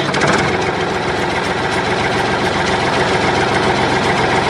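Steady engine-like running sound for a toy tractor: an even, unchanging mechanical running with fine rapid ticking and no rise or fall in pitch.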